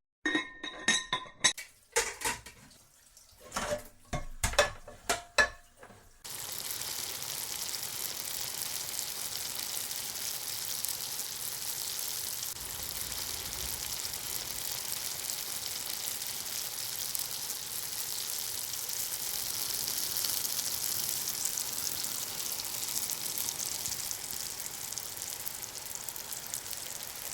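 A few short, sharp ringing clicks, then about six seconds in a sudden switch to a steady hiss, like rain or frying, for the rest.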